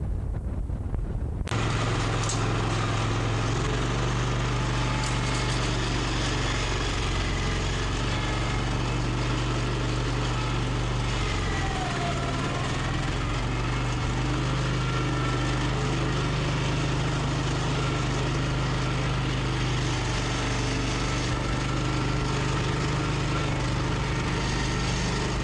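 After a second or so of wind on the microphone, a steady engine-like mechanical hum starts suddenly and runs on; about halfway through it briefly dips in pitch and then picks up again.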